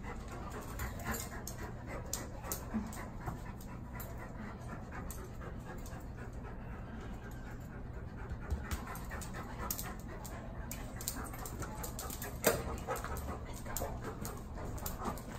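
Large black dog panting steadily, with occasional light clicks and one sharper knock near the end.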